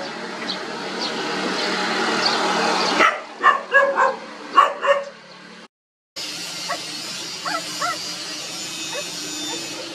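A swelling rush of noise, then a mother dog barks about five times in quick succession. After a brief gap, puppies whimper faintly a few times with short rising squeaks over a steady hiss.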